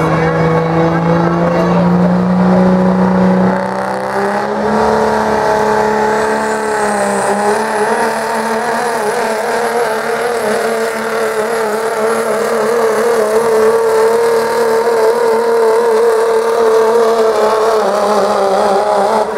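Dodge Ram dually's Cummins inline-six turbo-diesel under full load pulling a weight-transfer sled. The engine revs up about three and a half seconds in and then holds at high revs, with a high turbo whistle climbing in a few seconds later and holding.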